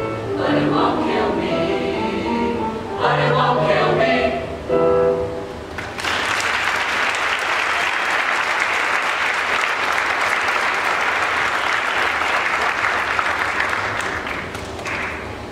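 A mixed high school choir sings the final phrases of a song, with its last chord cutting off about six seconds in; the audience then breaks into steady applause that tapers off near the end.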